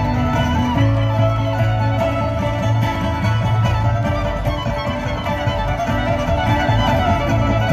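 Live bluegrass band playing an instrumental passage with the fiddle out front over banjo, mandolin and upright bass.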